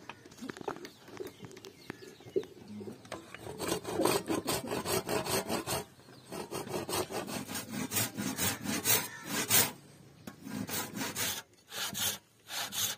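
Hand saw cutting through a wooden block, a cleaver handle blank, in back-and-forth strokes about two a second, after a few seconds of lighter scraping.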